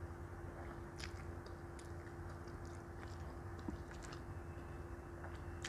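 Close-miked chewing of a mouthful of Samyang Rose spicy instant noodles: scattered soft mouth clicks and smacks.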